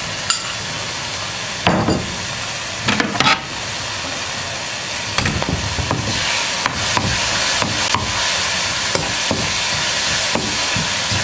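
Lemon pieces sizzling in hot coconut oil in a metal pan, with a few sharp knocks of a utensil against the pan. From about five seconds in the sizzle is a little louder with many small crackles and the scrape of a spatula stirring.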